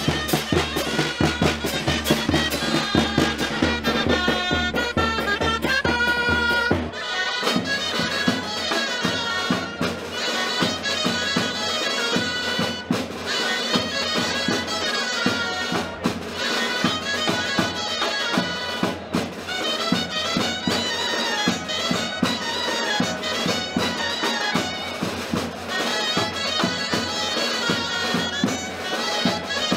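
Dulzaina music: the bright, reedy melody of the Castilian double-reed shawm. A strong low beat underneath drops out suddenly about seven seconds in, and the melody carries on.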